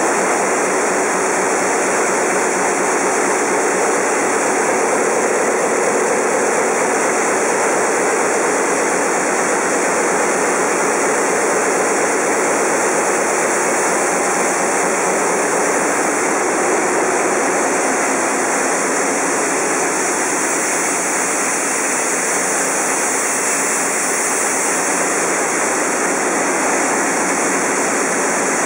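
Loud, steady engine-room din of large marine diesel engines running, an unbroken mechanical rush with no single clear tone.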